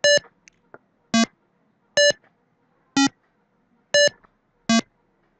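Browser version of the Atari Breakout game playing its short electronic bleeps as the ball bounces off bricks and the paddle. There are six separate bleeps, about one a second, in two or three different pitches.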